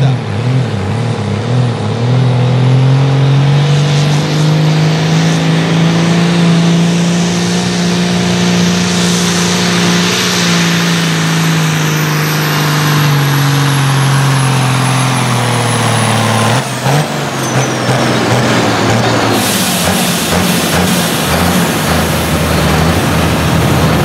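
Modified Ford farm tractor's diesel engine running flat out under full load as it drags a tractor-pulling sled; the engine note rises a little, holds, and sags as the pull goes on. After a sudden break about two-thirds through, the engine is heard again at a lower, steadier pitch.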